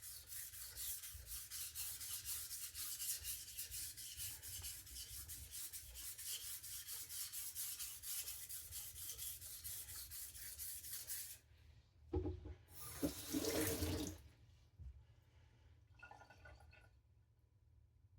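Steel knife blade being stroked back and forth on a wet sharpening whetstone, a steady gritty scraping as the edge is ground down to reprofile it and raise a burr. The scraping stops about eleven seconds in. Two short, louder noises follow, then it goes faint.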